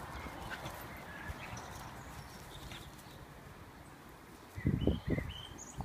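Shiba Inu and Caucasian Shepherd puppy play-fighting, with three short, low grunts close together near the end. Birds chirp faintly in the background.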